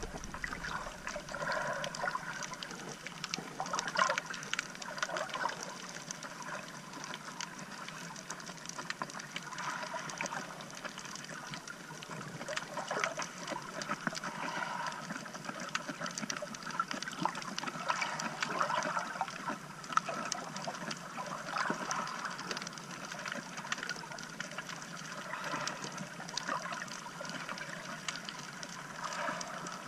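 Water moving around a camera held underwater: a muffled, steady gurgling and sloshing dotted with many small clicks.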